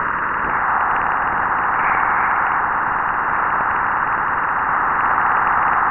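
Juno's plasma-wave radio signals from Jupiter's magnetosphere converted to sound: a steady, even hiss held in a narrow mid band.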